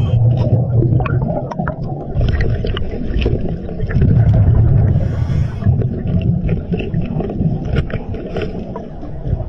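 Underwater recording on a scuba dive: a steady low rumble with scattered clicks and knocks of hands and gear against rock, and a brief rush of the diver's exhaled bubbles about five seconds in.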